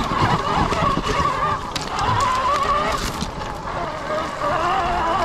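Sur-Ron electric dirt bike's motor whining under load on a climb, its pitch wavering up and down with the throttle. A few sharp clicks and knocks come through beneath it.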